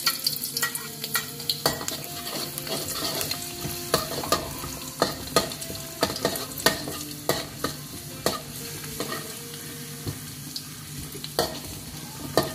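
Garlic sizzling in hot oil in a wok while a metal spatula stirs it, scraping and clicking irregularly against the pan.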